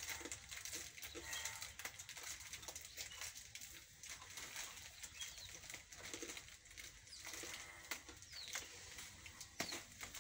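Corded electric hair clippers running faintly as they shave a head close, with several short, high falling chirps now and then.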